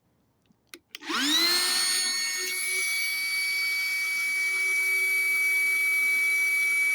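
A small 20-volt cordless inflator pump switched on with a click or two. It spins up in pitch about a second in and then runs with a steady, loud whine.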